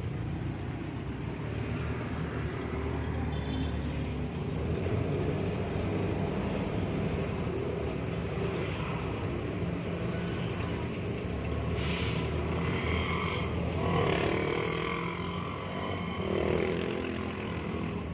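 An owner-type jeep's engine running steadily in slow traffic, heard from inside the vehicle, with the noise of surrounding traffic. A short sharp noise comes about twelve seconds in, and other gliding engine sounds follow.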